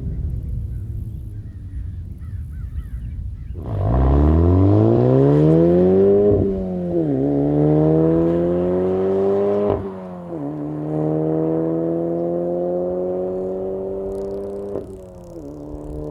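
Exhaust of a VW Golf R's turbocharged 2.0-litre four-cylinder through an AWE SwitchPath exhaust, accelerating hard through the gears. After a few seconds of low rumble the engine note climbs steeply, drops sharply at three upshifts, and climbs again after each one, more slowly after the last shift.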